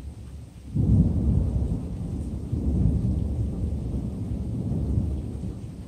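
Thunder: a deep rumble breaks in suddenly about a second in and rolls on for several seconds, easing off near the end.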